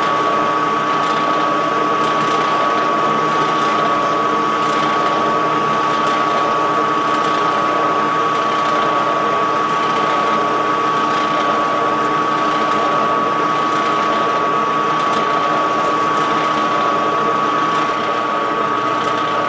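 Metal lathe running steadily under a turning cut, a constant mechanical whir with a steady high whine, as the carbide insert cuts the part and sheds chips.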